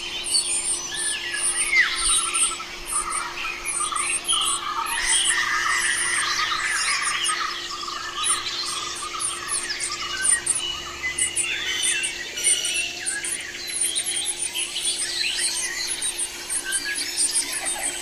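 Small birds chirping and calling busily in quick short notes, over a rapid high-pitched insect ticking and a faint steady hum.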